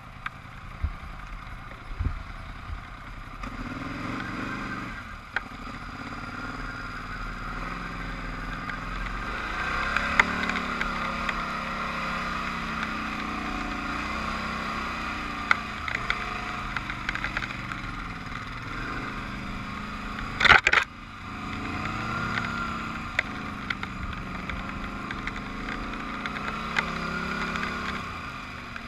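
ATV engine running along a rough, rocky trail, its revs rising and easing off again and again, with rattles and clatter from the bumpy ground. A loud, sharp thump comes about two-thirds of the way through.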